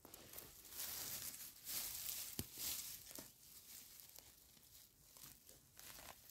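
Rustling and crinkling of grass, moss and dry leaves as a hand parts the ground cover around a cep and takes hold of its stem, with a single sharp click about two and a half seconds in.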